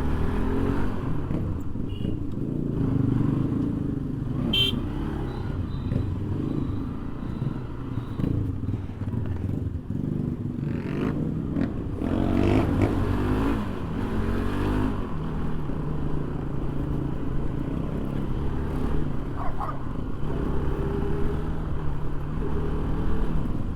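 Motorcycle engine running as the bike is ridden along an off-road track, its pitch shifting up and down with the throttle.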